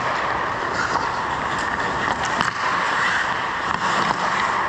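Ice hockey play on the rink: a steady scraping hiss of skate blades on the ice, with scattered sharp clicks of sticks and puck.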